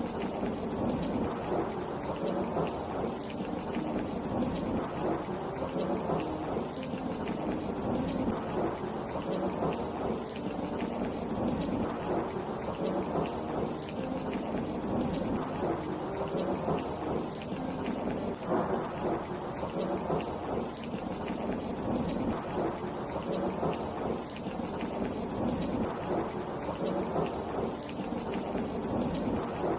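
Steady rain falling, a dense, even patter of drops that does not let up.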